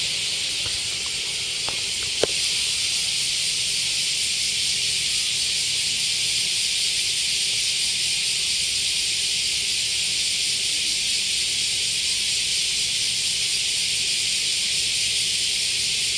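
A dense chorus of many cicadas: a steady, high-pitched buzzing drone that holds at one level without letting up. A small click sounds about two seconds in.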